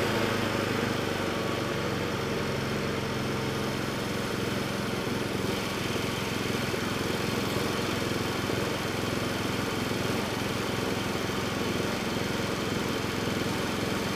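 Briggs & Stratton P3000 inverter generator's small single-cylinder engine running steadily just after a recoil pull-start, an even and very quiet hum.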